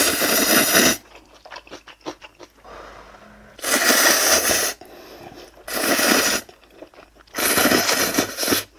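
A person slurping instant ramyeon noodles in four long, loud slurps, each lasting about a second: one at the start, then a group of three from about three and a half seconds in.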